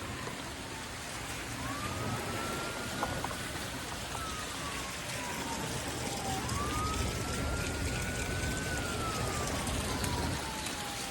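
Emergency-vehicle siren wailing: a single tone that rises, holds, then slides slowly down, in two slow cycles about five seconds each, over a steady low background rumble.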